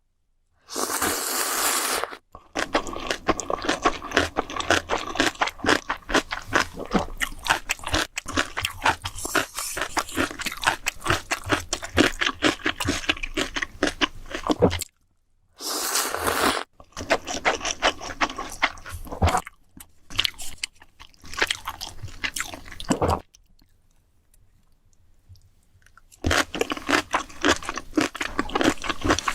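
Close-miked eating: rapid crunchy, wet chewing, broken by two short hissing bursts, one about a second in and one about halfway through, and a few seconds' pause near the end.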